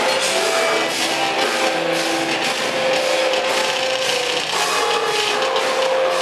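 Live rock band playing loud: electric guitar holding long notes that change pitch every second or so, over drums and steady cymbal hits.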